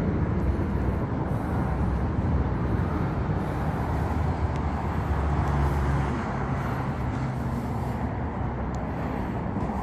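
Steady low rumble of wind and vehicle noise, with a faint engine-like drone rising and falling in the low end.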